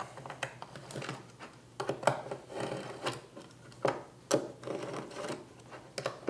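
T-handle hex key driving screws to fasten a 3D-printed plastic plate onto a 3D-printed motor mount: irregular light clicks and short rattles of the metal key against screws and plastic parts.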